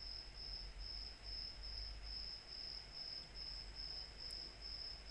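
A cricket chirping steadily: even pulses of one high tone, about two a second, over a faint low hum.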